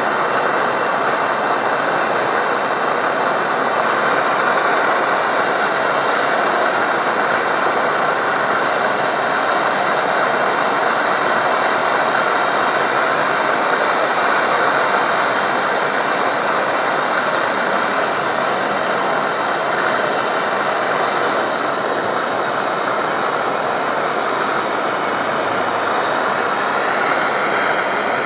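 Electric hot-air heat gun running, a steady blowing noise of fan and air.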